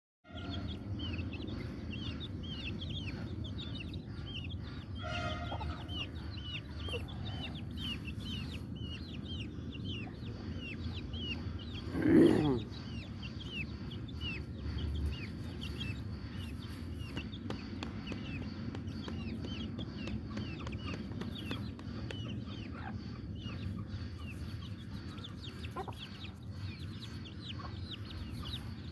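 Aseel chickens calling: a steady run of short, high, falling peeps, two or three a second, over a low steady hum. One louder pitched call comes about twelve seconds in.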